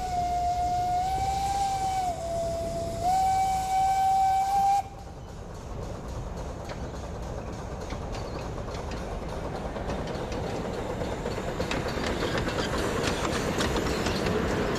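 Miniature live-steam locomotive sounding its steam whistle for about five seconds. The whistle dips slightly in pitch around two seconds in, then sounds louder again and cuts off. The locomotive and its carriages are then heard running along the track, growing steadily louder as they approach.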